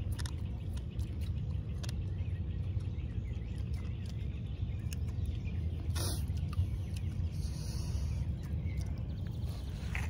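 Outdoor ambience: a steady low rumble with faint bird calls and a few light clicks, one sharper click about six seconds in.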